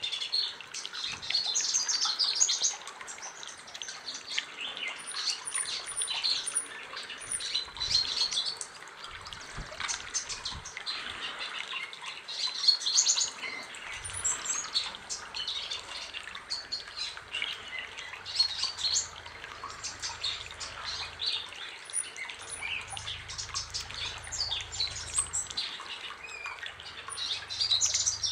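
Male white-bellied sunbird (Cinnyris talatala) singing: a rapid, high twittering song in phrases of a few seconds with short breaks between them.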